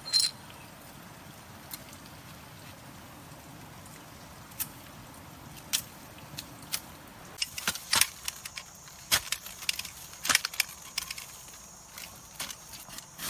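Scattered sharp metal clicks and clinks over a faint steady background, few at first and coming thick and fast in the second half.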